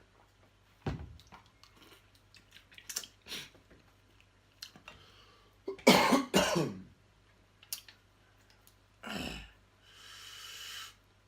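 A person coughing: a loud double cough about six seconds in and another cough near nine seconds, with small clicks and smacks of eating before it and a short breathy hiss near the end.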